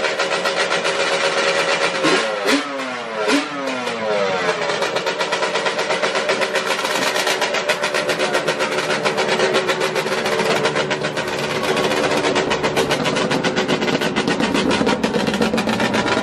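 Yamaha Banshee 350's two-stroke twin engine running hard. About two seconds in, the revs rise and fall through a few quick throttle blips, then hold a steady high note for the rest of the time.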